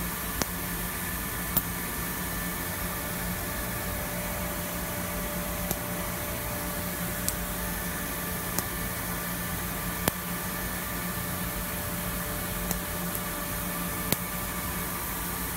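Steady machine hum and hiss under a run of short, sharp clicks, one every second or few, as small milled aluminium parts are lifted off a vacuum table.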